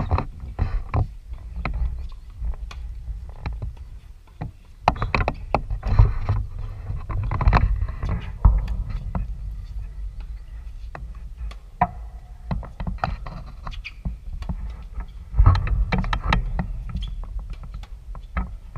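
Wind buffeting the microphone in gusts, with sharp pops of tennis balls struck by rackets and bouncing on a hard court.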